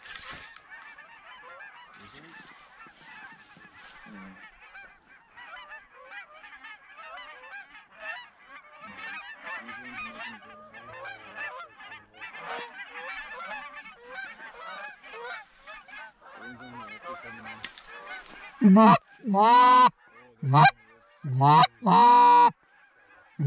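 A flock of geese honking: many overlapping calls from birds at a distance, with no break. Near the end, much louder, closer honks come in a quick series of separate calls.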